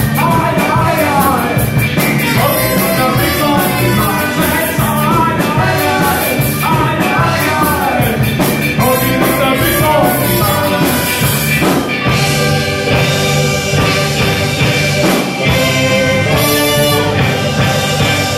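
Live ska band with saxophone, trumpet and electric guitar playing loudly, with singing in the first part; from about twelve seconds in, the horns hold long steady notes.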